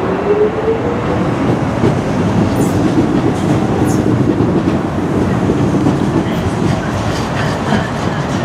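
Two-unit Docklands Light Railway train pulling away from the platform and running past, its motor whine rising in pitch over the first second or so, with steady rail running noise and a few sharp wheel clicks.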